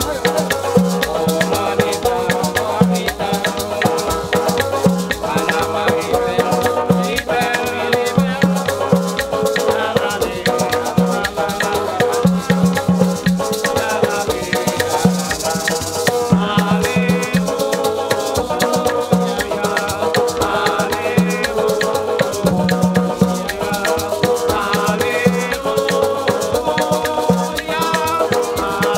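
Live Haitian acoustic band playing: a banjo and an acoustic guitar strummed over a steady shaken maraca rhythm and a pulsing bass line, with men singing along.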